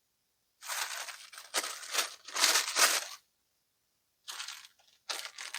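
Rustling and crinkling as a folded polo shirt is shaken out and unfolded, in one long stretch and then two short rustles near the end.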